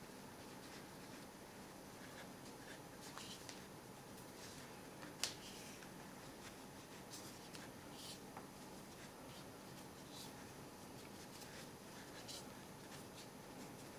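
Faint rubbing and rustling of 3 mm macramé cord being wound round and round a bundle of cords to tie a wrapping knot, with a single sharp click about five seconds in.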